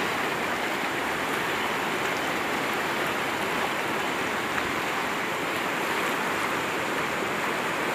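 Fast-flowing river water rushing through rapids: a steady, even rush with no let-up.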